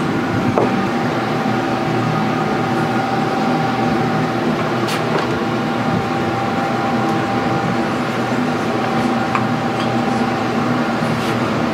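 Steady machine hum with several low droning tones. A single higher steady tone comes in about half a second in and holds, with a few light clicks over it.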